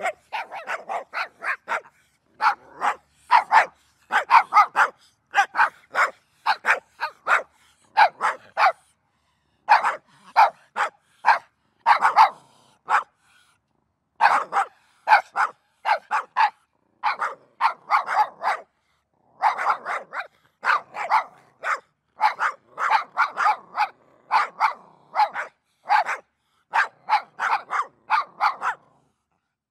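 Dog barking in quick runs of short barks, several a second, broken by brief pauses.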